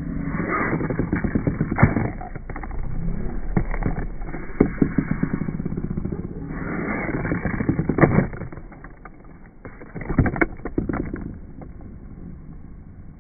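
Small toy fingerboard (Tony Hawk Box Boarders) clacking and rolling on a hard tabletop: a few sharp clacks a couple of seconds apart over a rolling rumble, quieter after about two-thirds of the way.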